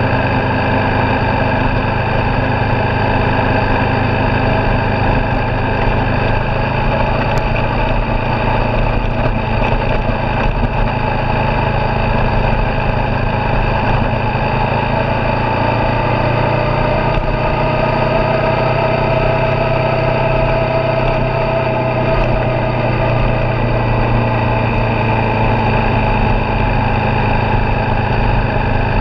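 Suzuki V-Strom 650XT's 645 cc V-twin engine running at a steady cruise, heard from on the moving motorcycle. The bike is new and being run in.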